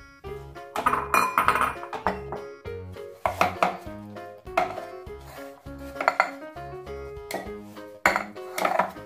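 Black metal muffin tin clanking and rattling several times as it is handled on a tile counter and batter is spooned into its cups, each clank with a short metallic ring. Background music with a repeating bass line runs underneath.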